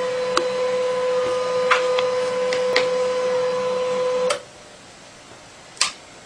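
Printer running with a steady whine and a few sharp mechanical clicks. It stops abruptly about two-thirds of the way through, and one more click follows.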